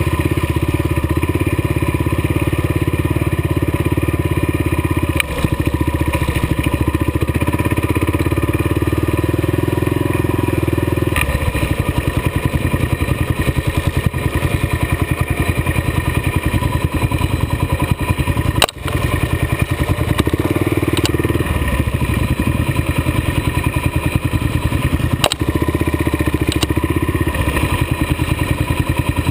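Kawasaki KLR dual-sport motorcycle's single-cylinder four-stroke engine running under way, heard from the bike. About eleven seconds in the engine note changes to a rapid, even pulsing beat. A few sharp knocks come through, the loudest about two-thirds of the way in.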